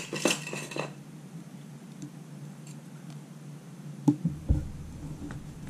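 Trading cards being handled at a table: a few soft rustles and clicks in the first second, then quiet, then a low thump with light clicks about four seconds in as a card is moved and set down.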